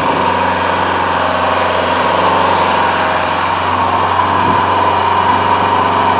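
Engine of a Vermeer trencher-backhoe running steadily at a constant speed.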